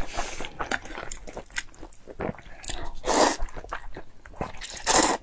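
Close-miked eating: chewing and lip-smacking with small clicks, and two long slurps of noodles, one about three seconds in and one near the end.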